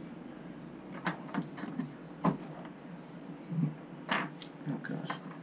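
Scattered light clicks and taps of a small R4 ball bearing being pressed into a 3D-printed plastic gun carriage, with two sharper knocks about two and four seconds in.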